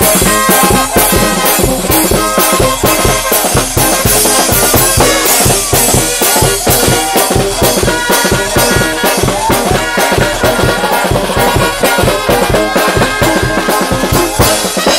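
Live Mexican banda de viento (brass wind band) playing a dance tune: trumpets and trombones over a quick, steady beat of bass drum and cymbals.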